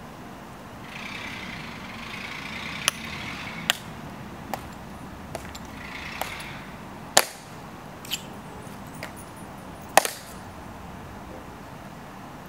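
Slow, evenly spaced footsteps of a ceremonial guard's metal-tapped heels striking a stone plaza, sharp single clicks a little under a second apart. They end in a louder double heel click as he halts.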